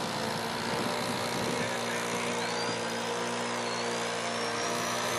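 Radio-controlled model Spitfire's engine droning steadily in flight, with a faint high whine that rises slowly in pitch through the second half.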